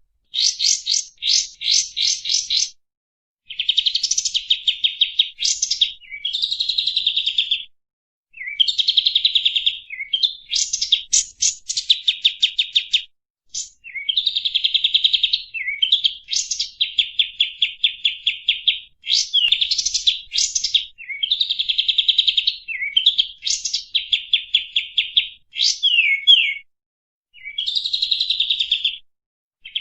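Kapas tembak songbird singing a lure song: phrases of fast, high rattling trills mixed with sharp down-slurred whistles, each phrase one to three seconds long, separated by short pauses.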